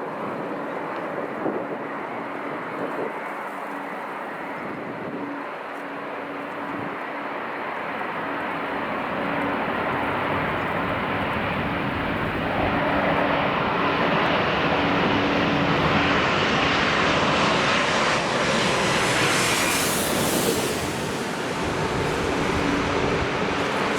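Jet airliner's engines growing steadily louder as it approaches, loudest about twenty seconds in as it passes closest, with a high whine that rises and then falls in pitch as it goes by.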